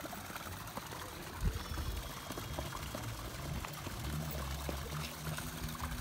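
Waterfall water pouring and trickling, a steady rush. A single thump about a second and a half in, and a low rumble in the last couple of seconds.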